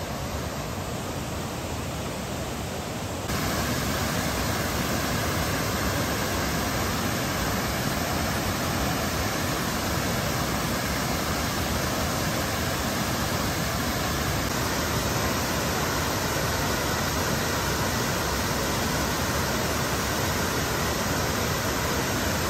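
Waterfall cascades rushing steadily. About three seconds in the rush grows louder and fuller.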